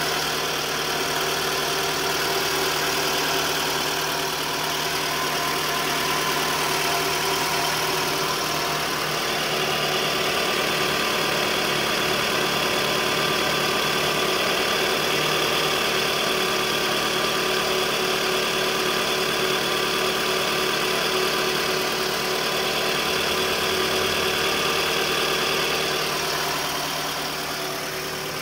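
Toyota Estima engine idling steadily, heard up close in the open engine bay, with a higher whirring band that strengthens for a while in the middle.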